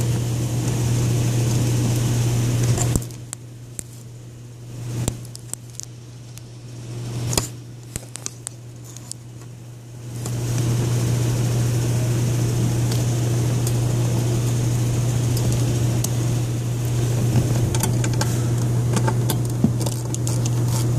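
A steady low hum with scattered light clicks and knocks of metal and plastic parts being handled, as a car amplifier and its bracket are set back under a seat. The hum drops away for several seconds, about three seconds in, then returns.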